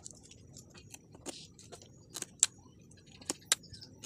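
A small knife blade cutting the tips off freshwater snail shells: several light, sharp clicks and cracks at uneven intervals.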